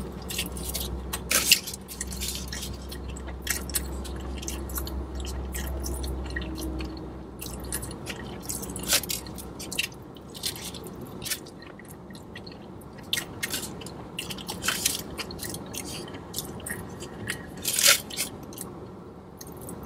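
A person biting into and chewing a foil-wrapped burrito close to the microphone: irregular wet chewing clicks and smacks, with rustles of the aluminium foil wrap.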